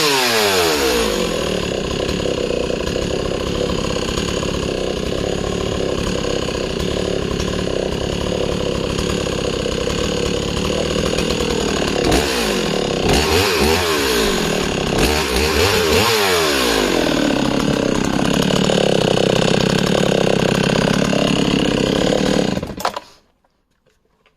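Husqvarna 61 two-stroke chainsaw running: its revs drop sharply at the start, it runs steady, is revved up and down several times about halfway through, and then is switched off, stopping abruptly near the end.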